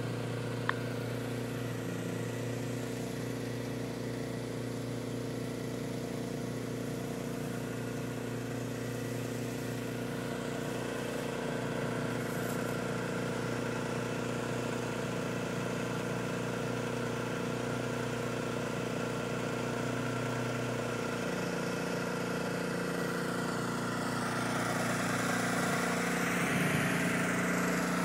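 An engine running steadily at an even speed, with a single click about a second in. Near the end the sound swells slightly and shifts in pitch.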